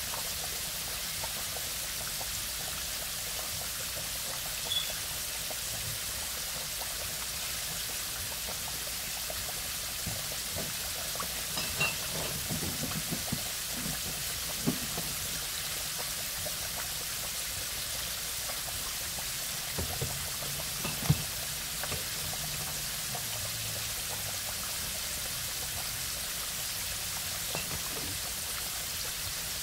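Chicken pieces deep-frying in hot oil in an enameled cast-iron Dutch oven: a steady, even sizzle with a few light pops and knocks scattered through it.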